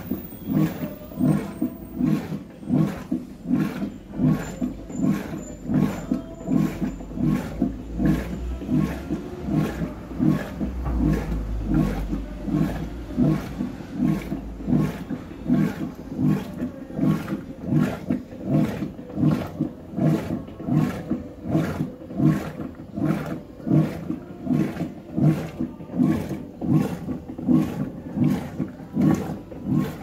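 Electrolux LEC 12 top-loading washing machine in its wash cycle, the agitator swinging back and forth through a load of white clothes and water. It makes an even rhythm of swishing strokes, about one and a half a second.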